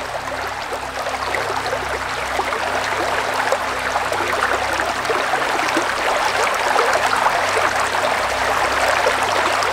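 Creek water running: a steady, even sound of flowing water.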